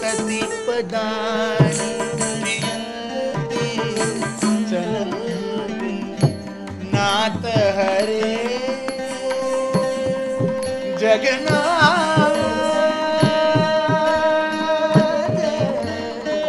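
Live Carnatic ensemble playing an ashtapadi: an ornamented sung melody with sliding notes, with flute and veena, over frequent mridangam drum strokes.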